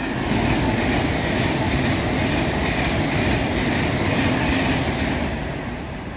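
A train passing through the station without stopping. A steady rush of wheel-on-rail and running noise swells up right away, holds, and fades near the end.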